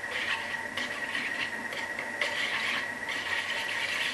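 Wire whisk beating a runny egg and chard mixture in a plastic bowl: rhythmic scraping and sloshing strokes against the bowl, about two to three a second.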